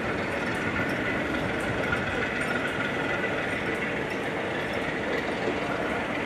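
Passenger train moving slowly past, with the diesel locomotive on its rear running as it goes by. The noise is steady, with a faint high tone held over it.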